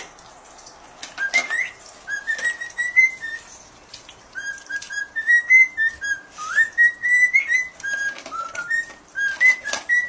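Cockatiel whistling a string of short notes, many sliding upward, with the crunching and clicking of a dog eating dry kibble from a bowl.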